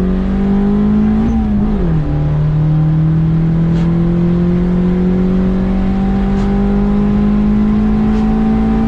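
Turbocharged single-cam Honda D16 four-cylinder at full throttle, revving up, upshifting about a second and a half in with a quick drop in pitch, then pulling steadily higher through the next gear. It is a tuning pull on 5 pounds of boost, made to check the spark plugs after the ignition timing was advanced.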